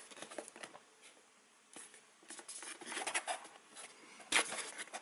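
A cardboard box being turned over and handled in the hands: fingers rubbing and scraping on the card with small knocks, busiest in the middle and with a sharper knock about four seconds in.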